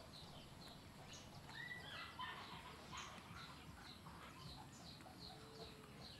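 Faint bird chirping: a short high note repeated about twice a second, with a few other faint calls among it.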